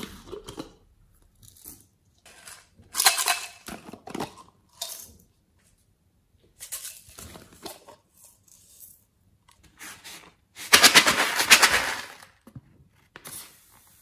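Loose sequins and glitter rattling in small plastic cups as the cups are opened and handled over a glass dish, in several short bursts, the longest and loudest about eleven seconds in.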